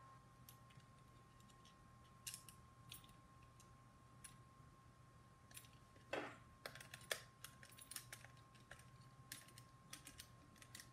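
Light, scattered clicks and taps of small plastic blaster parts and a thin rod being handled and fitted together by hand, busier from about six seconds in, over a faint steady electrical hum.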